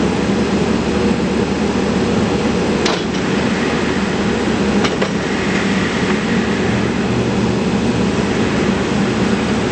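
Case 580N backhoe loader's diesel engine running steadily, with two short clicks about three and five seconds in.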